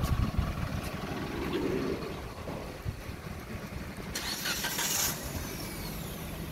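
City street traffic: a steady low rumble of passing vehicles, with a sharp hiss lasting about a second some four seconds in.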